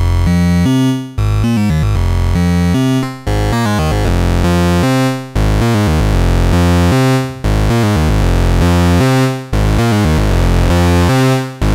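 Weston Audio TS0 time segment oscillator, an analog VCO, playing a buzzy tone whose pitch steps rapidly through its segments, with its sub-octave square wave mixed in for a heavy low end. The stepped phrase repeats about every two seconds, dipping briefly before each restart.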